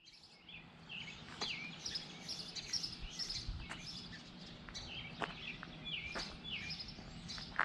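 Small birds chirping repeatedly in short, falling chirps over steady low outdoor background noise, with a few light taps.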